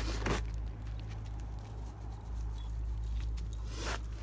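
A dog's chain collar jingling and rustling as the dog is petted, with scuffs near the start and again near the end, over a steady low rumble.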